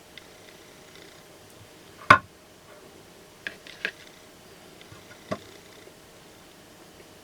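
One sharp knock about two seconds in, then a few lighter clicks and taps, over a faint steady hum.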